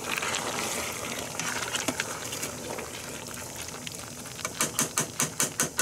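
A spoon stirring a wet, chunky mix of tomatoes, chickpeas, vegetables and ground beef in a Ninja Foodi's inner pot, over the steady sizzle of the pot cooking. Near the end comes a quick run of about eight sharp clicks, the spoon knocking against the pot.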